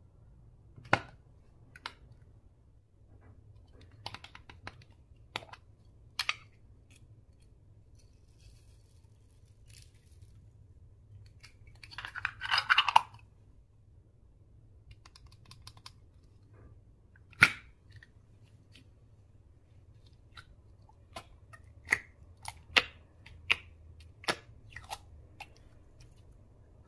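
Slime and makeup products being handled close to the microphone: scattered sharp clicks and pops, with a second-long run of rapid crackles about halfway through and a quick string of clicks near the end.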